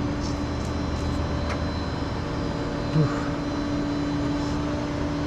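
Flatbed tow truck's engine running steadily, a constant drone with a held hum. There is one short knock about three seconds in.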